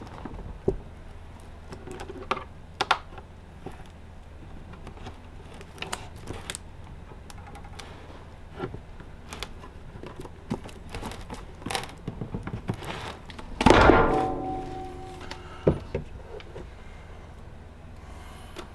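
The sealed plastic lid of a JITA 100Ah LiFePO4 battery case being pried off with a metal pry tool: scattered clicks, scrapes and knocks. About 14 seconds in comes one loud crack that rings on briefly, followed by another sharp knock, as the tightly sealed lid gives way.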